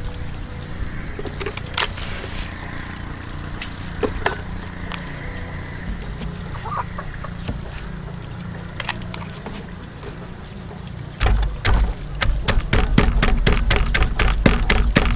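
Wooden pestle pounding garlic, red chilies and salt in a large wooden mortar: quick, regular knocks with deep thuds, about four a second, starting about eleven seconds in. Before that, only occasional light clicks and taps as the ingredients go into the mortar.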